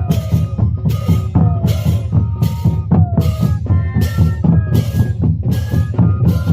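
Moseñada band playing: moseño flutes hold a melody with falling slides, over a steady drumbeat with a hit about every 0.8 seconds.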